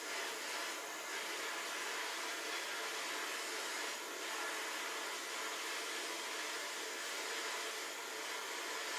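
Handheld gas torch burning with a steady hiss, its flame heating a copper pipe joint for soldering.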